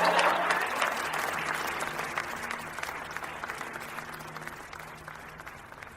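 A small crowd applauding, loudest at first and dying away over several seconds.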